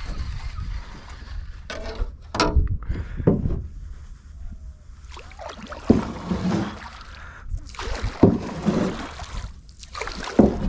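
Wooden paddle stroking through the water beside a small aluminium boat, a splash with each of several irregular strokes.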